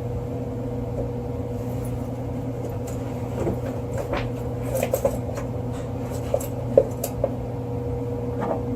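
A steady low hum throughout, with a scattered run of light clicks and clinks of hand tools on wire between about three and seven seconds in, as a wire is stripped and a new connector fitted.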